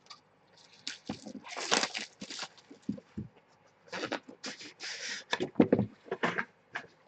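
Hands handling trading cards and their packaging: irregular rustling, crinkling and light clicks and taps.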